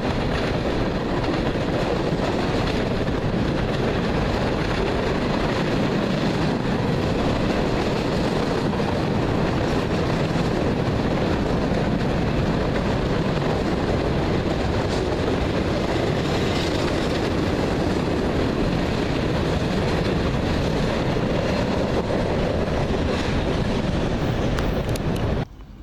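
CSX freight train rolling past: a steady rumble of wheels on rail with clickety-clack, cutting off suddenly just before the end.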